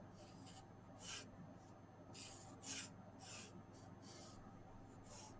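Pencil drawing straight lines on paper: several short, faint strokes in a row, each under half a second.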